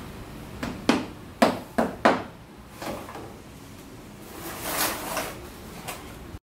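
Sharp wooden knocks and clatter from hand work on an old parquet floor, with four loud knocks close together in the first two seconds and a few lighter ones. A brief scraping sound comes about four and a half seconds in.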